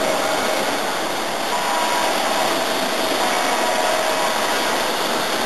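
O gauge electric model train running on the layout: a steady, even rushing noise of the locomotive and cars rolling on the track.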